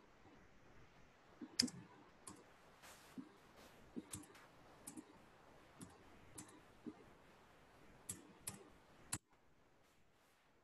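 About a dozen sharp, irregular clicks from a computer mouse and keyboard, some in quick pairs, over faint room noise. They stop about nine seconds in.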